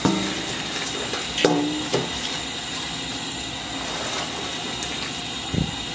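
Broth boiling in a wok with a steady hiss. A perforated metal skimmer knocks and scrapes against the wok and a metal bowl a few times while ladling out the food, the sharpest knock about a second and a half in. A dull thump comes near the end.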